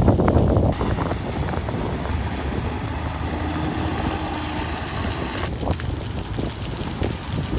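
Heavy construction machinery running with a steady low rumble. A high hiss joins it about a second in and stops suddenly about two seconds before the end.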